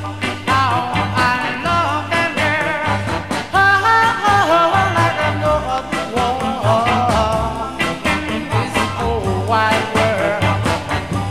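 Uptempo 1960s doo-wop/R&B record playing from a 7-inch 45: wavering melody lines over a steady drum beat.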